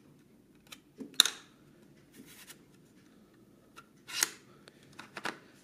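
Small plastic clicks and a short scraping slide from a Neewer NW-561 speedlite being handled at its flip-up bounce card. The sharpest click comes about a second in, the slide about four seconds in, and a few light clicks follow near the end.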